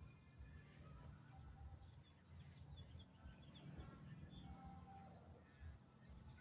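Near silence with faint, scattered bird chirps over a low steady hum.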